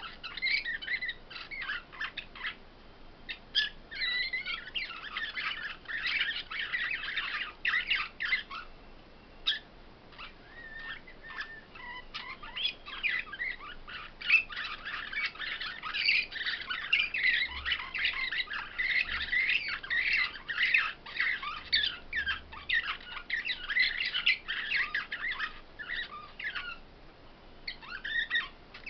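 Caged finches singing a rapid, twittering song in long runs of quick chirps, broken by short pauses.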